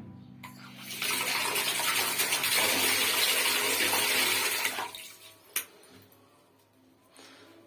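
Water running from a faucet, starting about a second in and shut off near five seconds, followed by a single sharp click.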